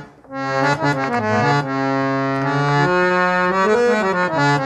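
Harmonium, its top cover off and reed board exposed, playing a short melodic phrase of held reed notes. The notes step from one pitch to the next every half second to a second, after a brief break at the start.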